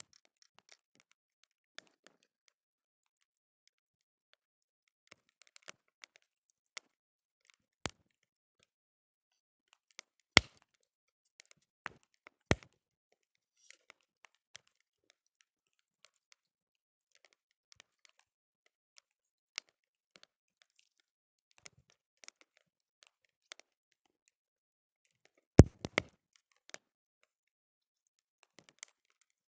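Wood campfire crackling: scattered small ticks and pops, with a few sharper, louder pops about ten seconds in, near the middle and about twenty-six seconds in.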